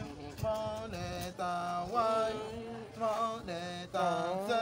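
A man's voice chanting in a sing-song way, in phrases of long held notes with short breaks between them.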